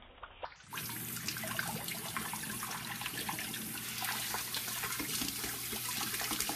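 Kitchen tap running, its stream splashing over a hand and into a metal pot in a stainless steel sink. The rush of water comes in suddenly a little under a second in and then runs steadily, with a constant patter of splashes.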